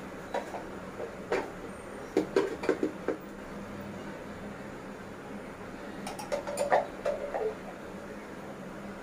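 Clatter and knocks of a clear plastic hand chopper's bowl and parts being handled and set down on a counter. They come in two clusters, one through the first three seconds and another from about six to seven and a half seconds, over a low steady hum.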